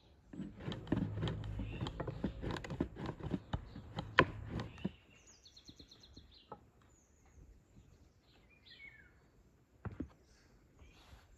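Thin rolled dough being pressed and gathered into a metal baking tray by hand: a few seconds of rustling with a quick series of knocks against the tray, the loudest about four seconds in. Afterwards birds chirp faintly in the background, with one more single knock near the end.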